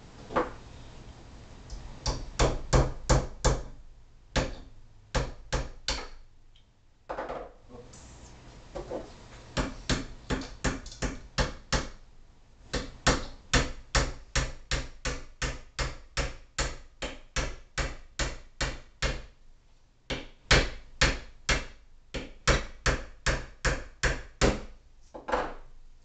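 Claw hammer driving nails into a wooden beehive frame: runs of sharp taps at about three a second, broken by short pauses.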